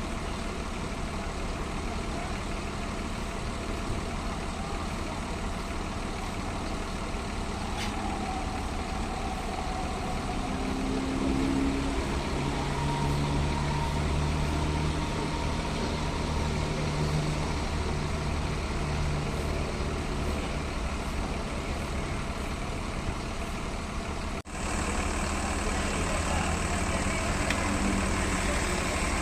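Bus engine idling steadily. It grows a little louder about eleven seconds in and cuts out for an instant near the end.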